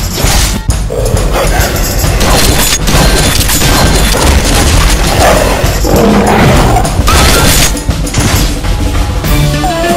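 Animated fight soundtrack: music under heavy booms and crashing impacts, with snarls from wolf-like monsters.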